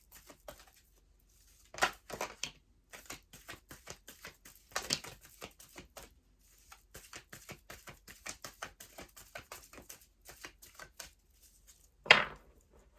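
A deck of oracle cards being shuffled by hand: a rapid run of soft card clicks and taps, with a few louder slaps about two, five and twelve seconds in.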